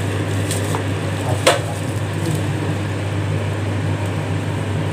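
Soaked rice sliding out of a steel vessel into a pot of hot chicken curry, a steady rushing pour over a constant low hum, with a single sharp knock about one and a half seconds in.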